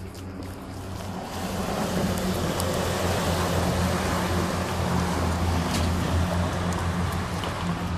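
Motor vehicle traffic on the street: a steady low engine hum with road noise that swells over the first two seconds and holds.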